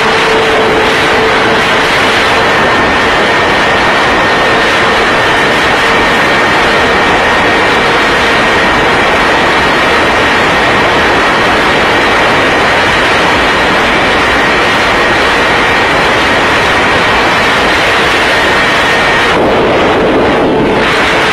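BMW S1000RR inline-four sport bike at high speed: loud, steady wind rush over the microphone with a constant engine whine held at steady revs, the engine tone fading out near the end.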